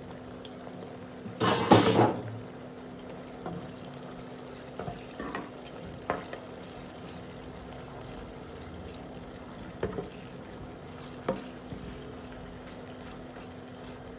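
Sliced onions frying in hot oil in a large aluminium pot, a steady sizzle, with a loud flare-up of sizzling about a second and a half in. A slotted spoon stirring gives a few short scrapes and taps against the pot.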